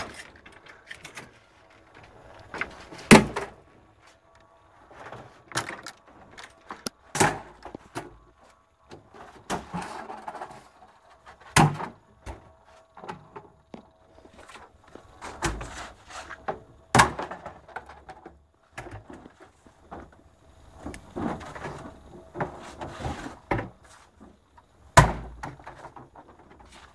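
A string of irregular knocks and thumps, about half a dozen of them sharp and loud, with quieter rustling and clatter between.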